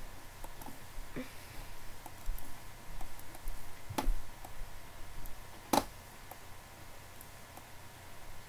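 Quiet room tone with scattered faint clicks and two sharper knocks, one about four seconds in and one near six seconds in.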